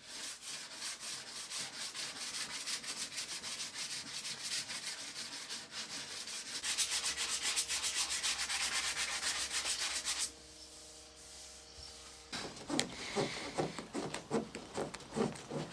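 Sanding the chipped, dinged hull of a cedar strip canoe: a rasping scrub that grows louder and denser about halfway through and stops suddenly about two-thirds of the way in. A faint steady hum follows, then a run of separate short rubbing strokes near the end.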